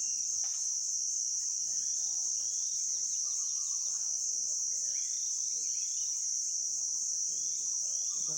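Steady high-pitched drone of forest insects, unbroken, with faint scattered chirps over it.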